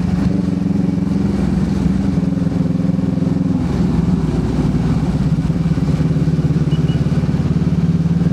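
Motorcycle engine running steadily while riding, its pitch shifting slightly about halfway through, over a steady hiss.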